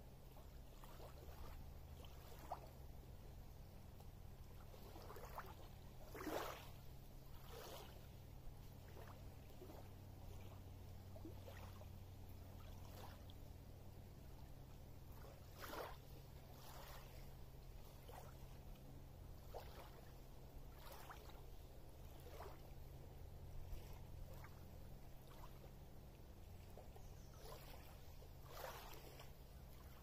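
Small waves lapping quietly on a pebbly lake shore: soft, irregular splashes every second or so over a low steady rumble.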